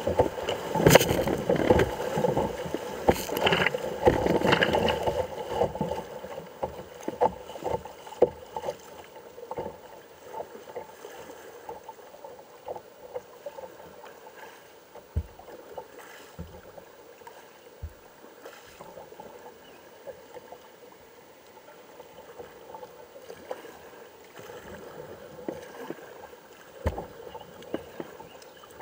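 Kayak running a small river rapid: white water rushing and splashing against the bow, loudest for the first five seconds or so. Then calmer flowing water with scattered light splashes and drips from the paddle, and a few dull knocks.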